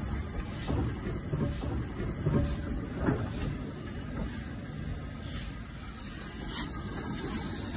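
Hornby OO gauge model BR Standard Class 2MT steam locomotive running on the layout's track, a steady hissing running noise with a few scattered clicks.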